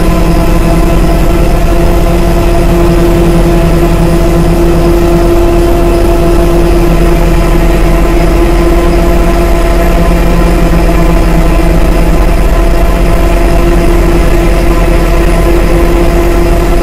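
Dark ambient synthesizer drone made with a Maneco Labs Grone and a Mutable Instruments Clouds module: a loud, steady wall of noisy texture over a deep low rumble, with a few held tones sustained throughout.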